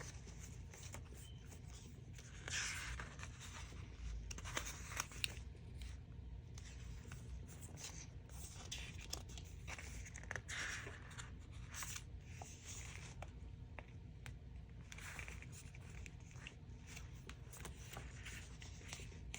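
Faint rustling and crinkling of paper and sticker sheets being handled, with scattered small clicks and taps.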